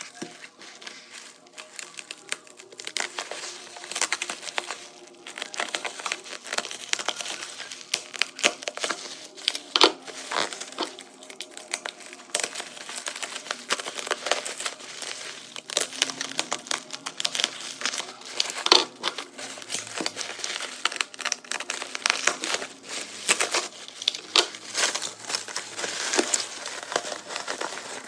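Packaging crinkling and crackling as it is handled and unwrapped, with irregular sharp crackles throughout.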